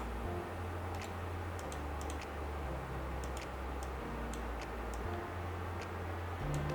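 Faint, irregular computer mouse clicks over a low steady hum.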